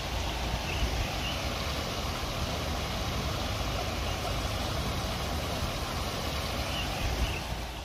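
Small stream flowing, a steady rushing of water, over a low uneven rumble, with a few faint high chirps about a second in and again near the end.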